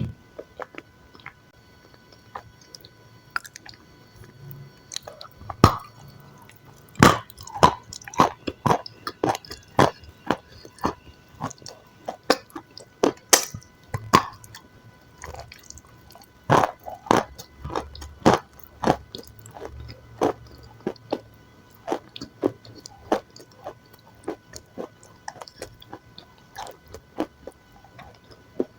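Close-miked chewing and crunching of food, with irregular sharp crunches and wet chews, busiest and loudest from about seven to nineteen seconds in.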